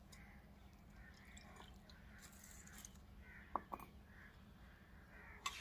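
Near silence, with a couple of soft knocks about three and a half seconds in and a sharper click near the end, from a mug and a spoon against a clay bowl.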